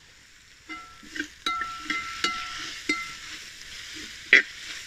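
Perforated metal skimmer stirring and scraping sliced onions frying in oil in a large metal pot, each stroke making the pot ring briefly, over a steady sizzle. The stirring starts about a second in, and a sharp knock of the skimmer on the pot comes near the end.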